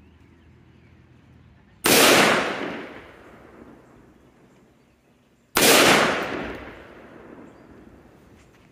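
Two shots from an AR-15 rifle fitted with a binary trigger, almost four seconds apart, each followed by a long echoing decay.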